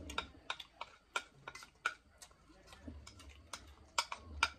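Metal spoons clinking against eating bowls, one of them a small steel bowl, as noodles are spooned up: about a dozen short, bright clinks at irregular intervals.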